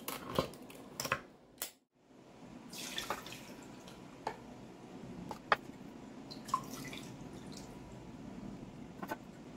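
A hand-cranked can opener clicks a few times on a can rim. Then canned clam juice is poured through a fine mesh strainer into a glass measuring cup, trickling and dripping in short runs, with a few sharp ticks of metal against the strainer and glass.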